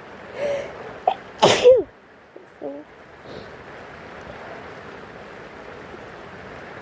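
A single loud, sharp sneeze about a second and a half in, preceded by a short catch of breath, with a small voiced after-sound about a second later. Steady rain hiss continues underneath.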